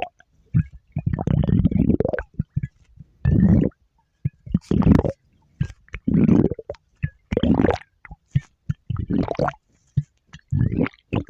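A person's stomach growling: a string of gurgles and rumbles, roughly one a second, separated by brief silences. The longest rumble lasts over a second, about a second in.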